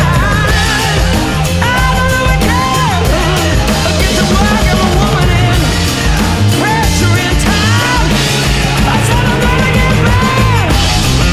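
Rock music with a sung vocal over drums and bass.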